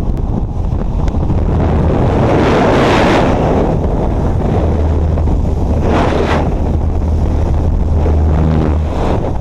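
Wind rushing past the microphone in the open door of a single-engine high-wing plane in flight, over the steady low drone of its engine and propeller. The rush swells louder about two to three seconds in and again around the middle.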